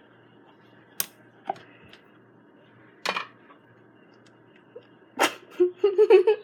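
A few sharp clicks and a short noisy burst from hands handling things, then about five seconds in a person's choppy laughing voice, the loudest sound here.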